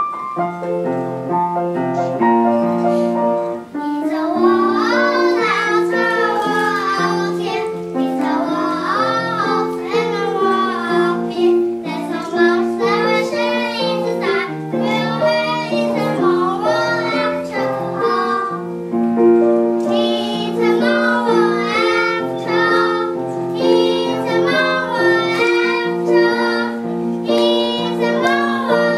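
A group of children singing together to piano accompaniment. The piano comes in suddenly at the start and the voices join a second or two later.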